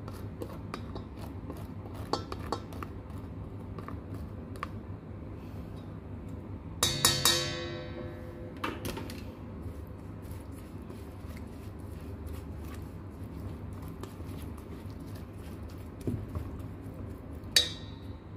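Kitchen tools scraping and tapping in a stainless steel mixing bowl of chopped herbs, many small clicks and scrapes as the marinade is grated into and stirred. The metal bowl rings out loudly when struck about seven seconds in, and once more with a sharp ring near the end.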